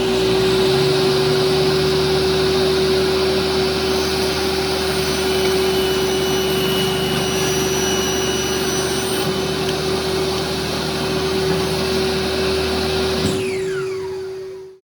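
An electric motor, likely a workshop machine, running steadily with a constant whine and rush of air, then switched off about 13 seconds in and winding down with falling pitch.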